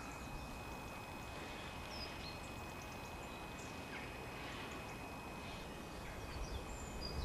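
Quiet outdoor background noise with a few faint, brief high bird chirps scattered through it and a thin steady high whine underneath.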